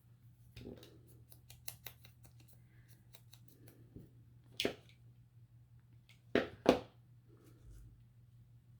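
Small paper craft pieces being handled on a work surface, with a run of light clicks and ticks, then three sharper clicks about four and a half and six and a half seconds in.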